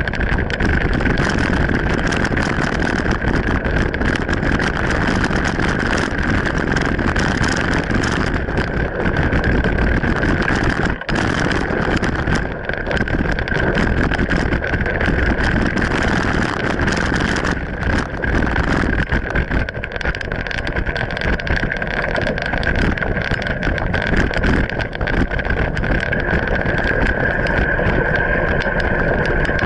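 Mountain bike ridden fast down a dirt forest trail: a constant rough rumble of tyres on dirt, thick with small knocks and rattles from the bike, mixed with wind noise on the action-camera microphone. There is a steady high hum throughout, and the noise drops out for a moment about eleven seconds in.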